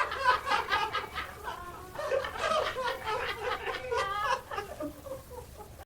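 Laughter: a long run of voiced chuckles and giggles in short, rapid pulses, cut off abruptly near the end.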